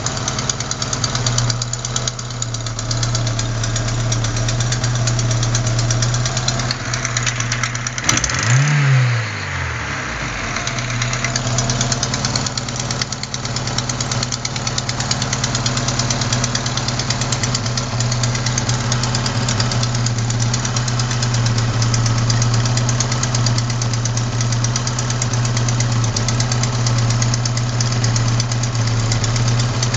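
Opel Ascona engine idling with a fast, even ticking knock, revved up once and let back down about eight seconds in. The uploader traces the knock to a leaking exhaust manifold gasket at cylinder 4.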